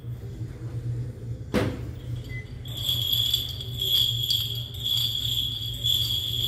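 Small bells on a censer's chains jingling, with a steady high ringing that fades out early and returns after a couple of seconds over a low steady hum. One sharp knock comes about a second and a half in.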